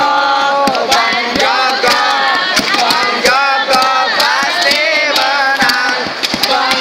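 Large crowd of spectators shouting and cheering in many overlapping voices, with frequent sharp bangs through it.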